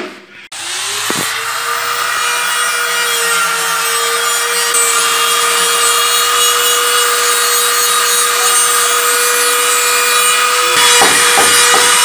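Angle grinder starting up about half a second in, then running at a steady pitch with a rasping hiss as it works the iron.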